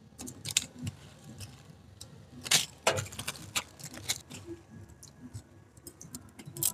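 Water boiling in a pan, with scattered clicks and light knocks as dry instant noodle cakes are put into it during the first few seconds.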